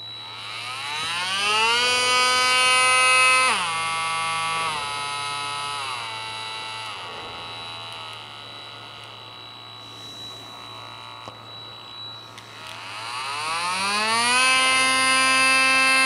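Parkside 20 V cordless oscillating multitool running unloaded with no blade fitted. The motor spins up with a rising whine and holds at high speed. It then drops in several steps to a lower speed on its speed control, and near the end climbs back to full speed. The noise is not too bad.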